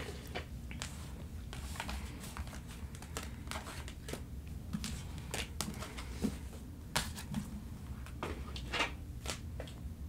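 Tarot and oracle cards being gathered up off a cloth-covered table by hand and squared into a stack: irregular soft clicks, taps and rustles of card against card, over a low steady hum.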